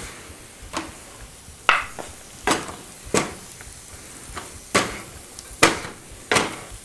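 Two wooden spoons knocking and scraping against a nonstick skillet as cream-coated mustard greens are tossed, about seven strokes, each a second or so apart, over a faint sizzle from the pan.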